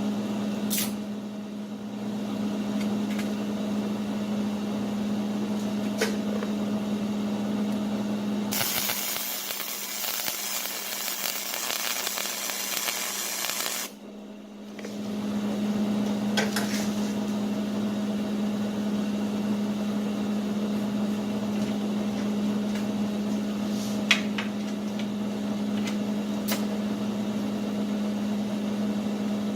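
Steady machine hum with one constant tone, with a few light sharp clicks or clinks. About nine seconds in, a loud hiss takes over for some five seconds, then cuts off, and the hum returns.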